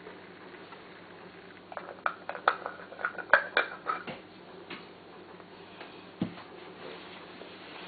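A small glass jar clinking and clicking for about two seconds as it is handled and set down, followed by a single soft knock about six seconds in.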